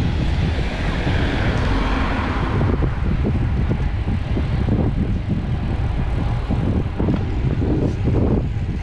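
Wind buffeting a bike-mounted action camera's microphone while riding a road bicycle downhill, a loud, gusty low rumble. A brighter rushing hiss fades away about two or three seconds in.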